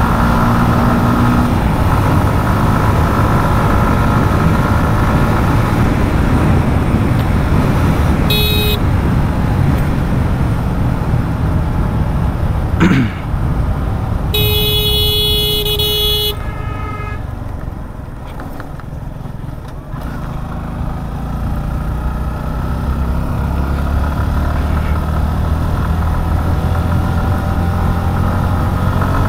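Motorcycle riding on a highway, engine and road rumble steady throughout. A vehicle horn gives a short beep about eight seconds in and a longer blast about fourteen to sixteen seconds in. A brief sharp knock comes just before the long blast.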